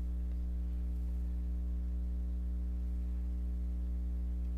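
Steady electrical hum with a buzz of evenly spaced overtones, unchanging throughout, with no handling clicks from the knife parts standing out.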